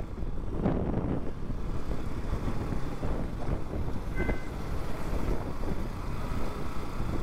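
Wind buffeting the microphone over a low, steady vehicle rumble, with a short high beep about four seconds in.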